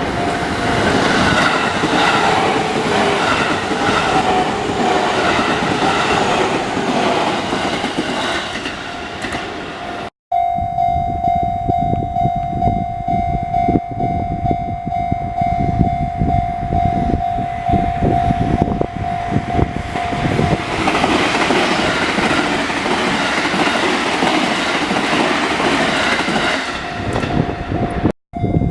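Electric trains passing over a railway level crossing, with heavy wheel-on-rail rumble and clattering over the rail joints. A steady ringing tone from the crossing's warning signal sounds through it, loudest in the middle stretch. The sound breaks off sharply twice where the clips are cut together.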